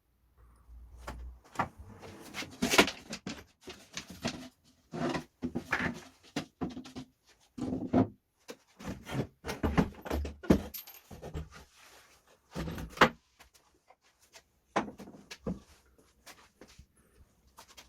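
Irregular knocks, clicks and short rattles of tools and workpieces being handled and set down on a wooden workbench, a few sharper knocks standing out, such as about three seconds in and around thirteen seconds.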